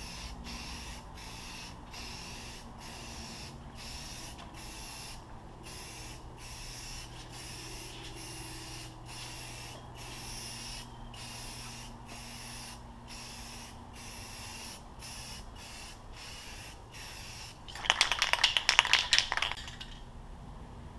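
Aerosol spray paint can hissing in many short bursts of about half a second to a second each, with brief pauses between them, as a first coat goes onto a rifle. Near the end comes a loud rattling for about two seconds.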